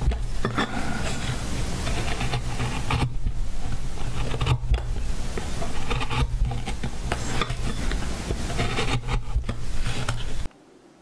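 Small hand carving chisel paring and scraping into a wooden board in close-up: a continuous dry scratching of steel on wood, with short breaks between strokes. It cuts off suddenly near the end.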